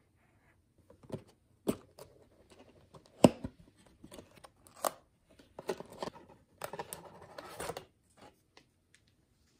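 Cardboard tea box being opened by hand: a string of sharp clicks and taps as the flaps are pried up, the loudest a little over three seconds in, then a rustle of card and paper around seven seconds in.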